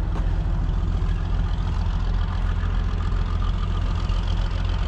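A heavy engine idling steadily, an even low rumble with no change in speed.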